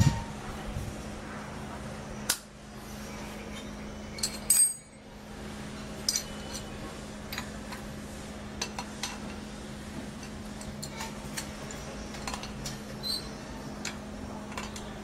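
Small steel parts of a homemade lock mandrel clinking and clicking against each other as they are fitted together by hand. The clinks are scattered, the loudest a quick cluster about four and a half seconds in, over a steady low hum.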